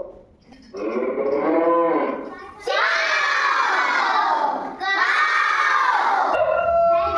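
A cow mooing, played from a recording, about a second in, followed by children shouting out answers loudly and at length.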